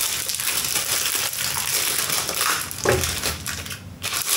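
Plastic packaging rustling and crinkling as a small item is handled and unwrapped, with a light knock about three seconds in.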